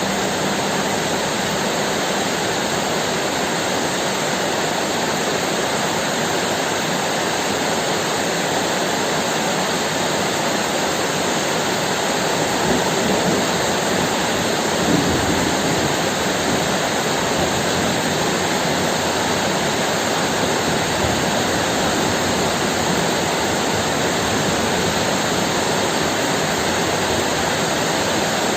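Heavy rain falling steadily, an even hiss of rain noise with no distinct drops or claps.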